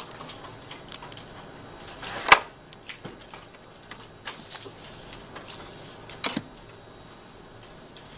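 Paper and a drawing pen being handled on a desk: scattered light taps and clicks, a sharp knock about two seconds in, two brief sliding rustles of paper as the sheets are moved, and a quick double knock a little after six seconds.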